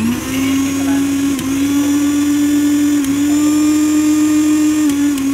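Lifelong Maxo 500-watt mixer grinder running, grinding half an onion in its small steel jar: a loud, steady motor whine that dips briefly in pitch three times.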